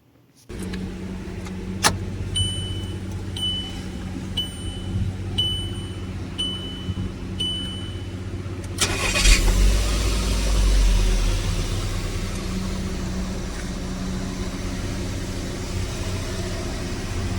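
A 2016 Volkswagen Tiguan's dashboard warning chime beeps six times, about once a second, then its 1.4-litre petrol four-cylinder engine is cranked and starts, rising briefly before settling into a steady idle.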